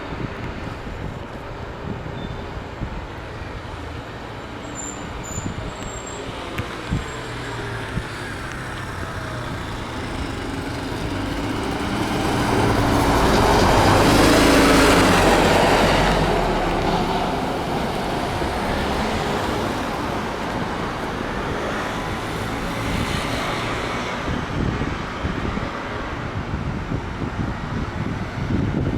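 Kyoto city bus, a new-model Isuzu Erga, driving past. Its engine and road noise build to loudest about halfway through, then fade away.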